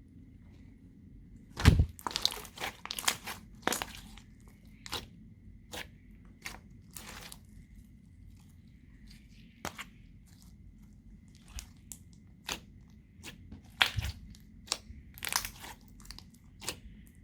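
Slime being kneaded and mixed by hand, giving irregular crackling pops and squishes, with a heavier thump about two seconds in and again near the end.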